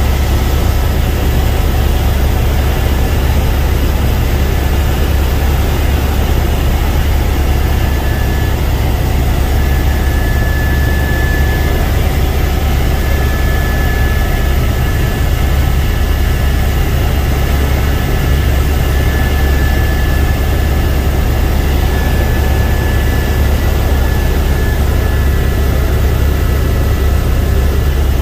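Helicopter in flight heard from inside the cabin: a loud, steady drone with a heavy low throb and a thin, steady high whine above it.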